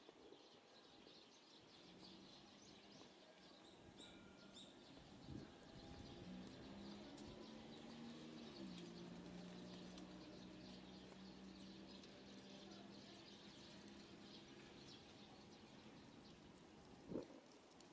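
Near silence: faint outdoor ambience with a low, steady distant hum, and a single soft knock near the end.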